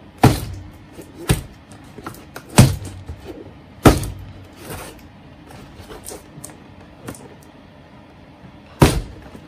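A cardboard figure box being set down on a cutting mat again and again as it is turned to show each side: five sharp thunks, with lighter taps and rustles of the box between them.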